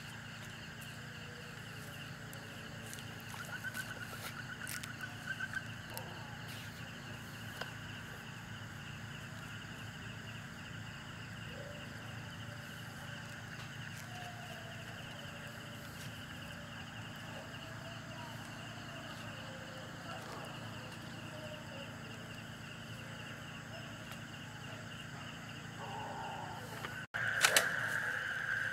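Steady night chorus of insects and frogs, several constant high tones layered together, with a short pulsing trill about four seconds in and a few faint clicks and rustles. Near the end the chorus suddenly gets louder, with one sharp knock.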